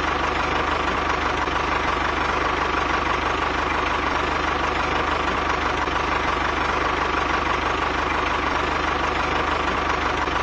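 Tractor engine idling steadily at an even level, with a constant high whine on top.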